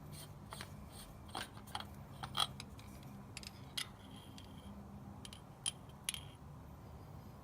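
Light metallic clicks and taps of a tractor's engine-oil dipstick being drawn from and slid back into its tube, about a dozen scattered strikes with the sharpest about two and a half seconds in, over a faint steady low hum.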